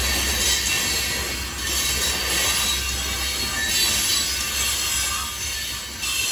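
Open-top freight cars rolling past close by: steel wheels rumbling and hissing on the rails, the high hiss swelling and easing every second or two as trucks go by.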